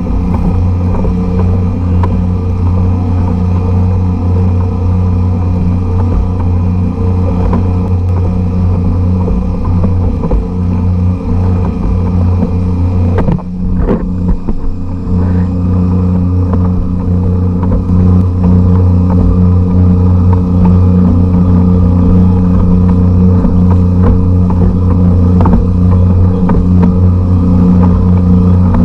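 A generic 52cc air-cooled, trimmer-type two-stroke outboard engine running steadily at speed, pushing the kayak along. It breaks off briefly about halfway through, then runs on a little louder.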